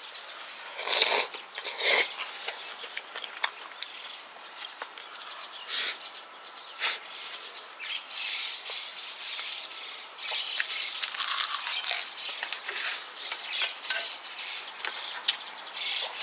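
Close-miked mouth sounds of a person eating kimchi stew: wet chewing, lip smacking and short slurps, heard as irregular sharp clicks and bursts that crowd together for a few seconds after the middle.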